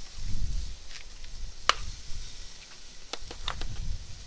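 Raw brisket sizzling as it goes onto the hot grate of a charcoal Weber kettle for a sear, a steady hiss broken by sharp pops and crackles, with a low rumble near the start and again toward the end.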